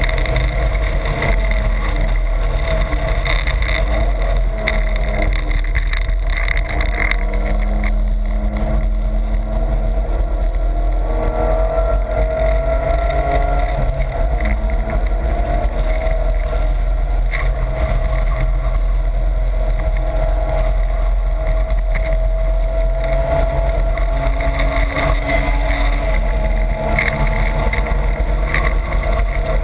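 BMW E30's engine driven hard on a race track, heard from inside the cabin, its pitch rising and falling with the revs through gear changes, over steady wind and road noise.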